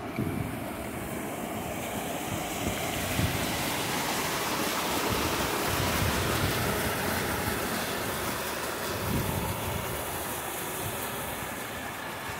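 Steady rush of water running down a pool water slide and splashing into the pool, swelling in the middle, with wind buffeting the microphone in low thumps.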